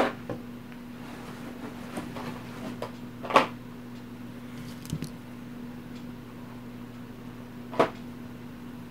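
Board-game miniatures and their box being handled and packed away: scattered small clicks and rustles, with two louder knocks, one about three and a half seconds in and one near the end.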